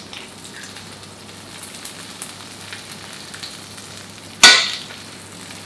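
Chicken and baby carrots frying in butter in a frying pan: a steady sizzle with small crackles. About four and a half seconds in there is one sudden loud sharp sound.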